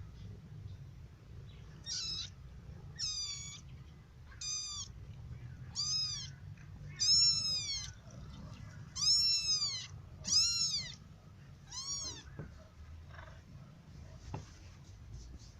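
Young kitten mewing about eight times, each call a high-pitched cry that rises and falls, over a steady low hum.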